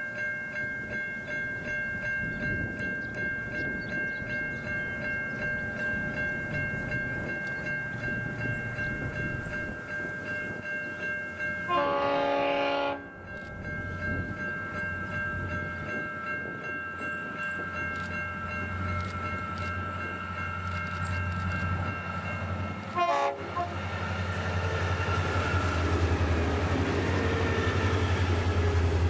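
Diesel freight train of SSR locomotives hauling hopper wagons sounds its horn in one loud blast about twelve seconds in and a short toot about eleven seconds later, then passes close with the engines' low drone growing louder. Level crossing bells ring in a steady pulse until about two-thirds of the way through.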